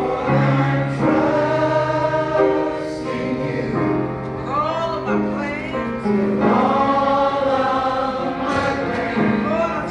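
Church choir of mixed men's and women's voices singing together in harmony, holding long notes.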